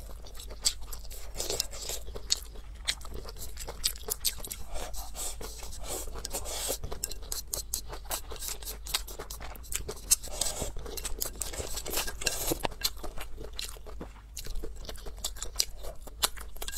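Close-miked eating sounds: wet chewing and crunching of rice and stir-fried cabbage, with many quick clicks and scrapes of wooden chopsticks against the bowl.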